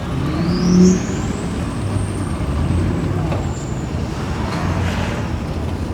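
Engines running steadily at a boat ramp, with a thin high whine that rises about a second in and then slowly falls away.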